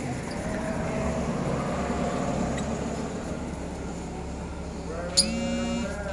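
A motor-driven machine running steadily, with two short flat buzzy tones near the end.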